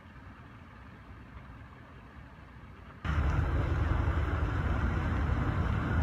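Faint low outdoor rumble, then a sudden jump about three seconds in to loud, gusty wind noise buffeting the microphone, deepest in the low end.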